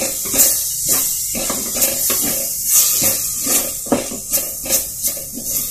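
Spiced onion-tomato masala sizzling in an earthen clay pot while a spatula stirs and scrapes through it in repeated strokes, about two a second.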